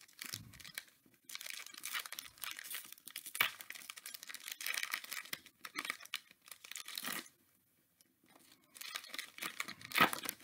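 Foil wrapper of a Donruss football card pack being torn open and crinkled by hand: irregular crackling and tearing, with a brief lull about two-thirds of the way through and a sharper crackle near the end.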